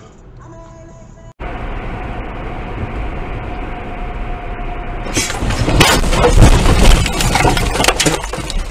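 Car cabin heard from a dashcam: steady road and engine noise, then about five seconds in a loud crash, a dense run of sharp impacts lasting two or three seconds, as an oncoming car swerves into the lane and strikes the driver's door.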